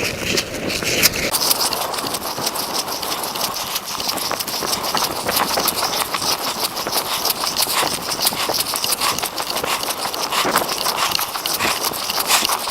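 Footsteps crunching on snow and ice in a continuous, uneven series, close to the microphone.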